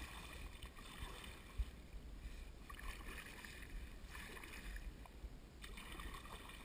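Faint kayak paddle strokes dipping and pulling through calm river water, with a low rumble underneath and one brief click about a second and a half in.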